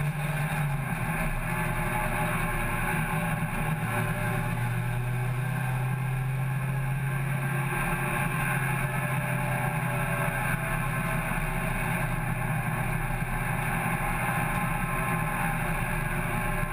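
Hot hatch race car's engine running at steady part-throttle revs, heard from inside the cabin with road and tyre noise. The engine note drops slightly about a second in and then holds steady.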